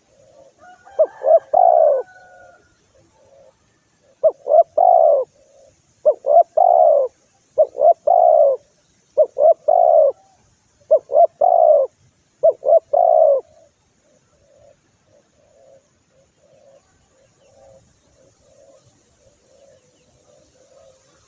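Spotted dove (tekukur) cooing a lure call that provokes rival doves. It gives about seven loud phrases, each a couple of quick short notes followed by a longer coo, spaced roughly every one and a half seconds, then stops about two-thirds of the way through. Fainter cooing carries on underneath.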